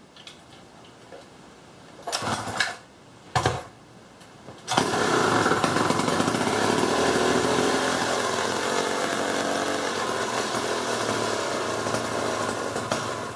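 Gas engine of an old Wright reciprocating saw being started: two short bursts, then it catches about five seconds in and runs steadily at high speed. It runs, but the owner says it needs the carburetor gone through.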